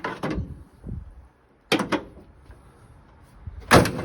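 The steel bonnet of a Rover P4 being shut, with metal knocks and thuds: one at the start, another just before two seconds in, and the loudest slam near the end.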